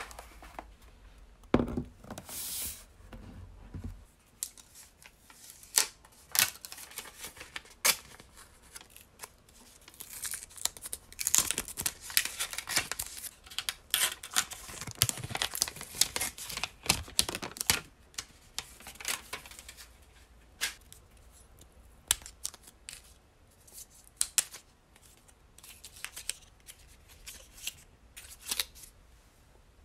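Protective plastic film and wrapping being torn and peeled off a laptop's charging brick and then its charging cable, with crinkling and many small clicks from handling. A few knocks in the first few seconds.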